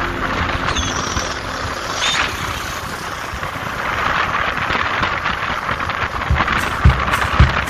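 Moto Guzzi V85 TT motorcycle on the move, heard from on board: a steady rush of engine, wind and road noise. A regular low thumping beat comes in near the end.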